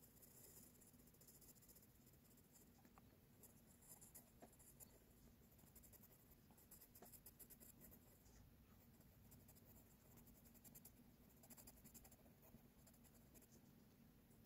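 HB pencil scratching faintly on drawing paper in quick hatching strokes, coming in short flurries of rapid strokes.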